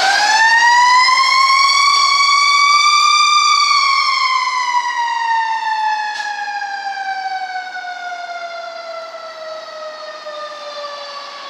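Fire engine's mechanical siren winding up in the first few seconds, then slowly winding down in one long falling wail that fades as the engine pulls away.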